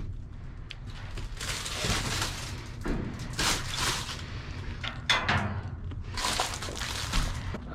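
Bags and food packaging being handled and moved around in a dumpster: several separate bursts of rustling, with light knocks and thuds.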